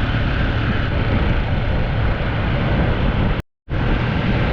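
Honda 150cc dirt bike running at riding speed, its engine a steady low hum under heavy wind rush over the camera microphone. The sound cuts out completely for a moment about three and a half seconds in.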